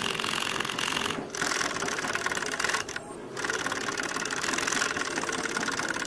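A 24-volt DC motor drives a homemade air pump, running with a fast, even mechanical buzz. The sound dips briefly twice, about a second in and about three seconds in.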